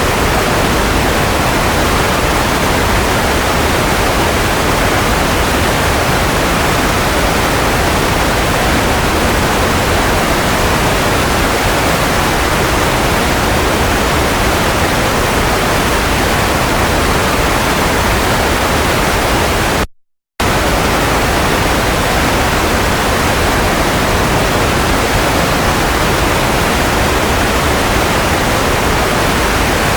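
Steady, even hiss of white noise, with no tone or rhythm, played as a baby sleep aid. It cuts out completely for about half a second roughly two-thirds of the way through, then resumes unchanged.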